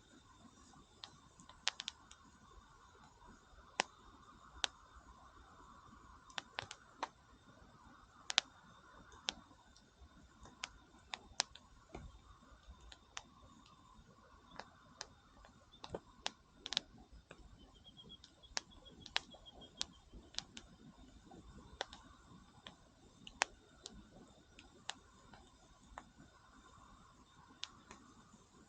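Wood campfire crackling, with sharp, irregular pops and snaps spread unevenly through the whole stretch.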